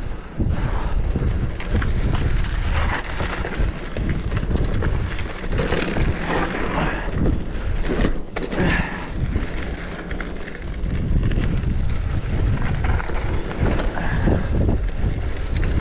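Wind buffeting the microphone of a mountain bike's camera on a fast downhill run, with tyres on a loose dirt trail and the bike rattling and knocking over bumps, roughest a little past the middle.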